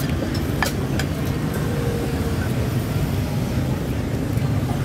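Steady low rumble of street traffic, with a couple of faint clicks about half a second and a second in.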